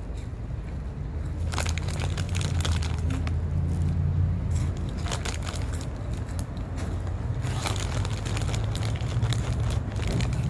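A bag of hot Cheetos crinkling as a hand reaches in, and crunchy chewing, in a few short crackly spells over a steady low hum.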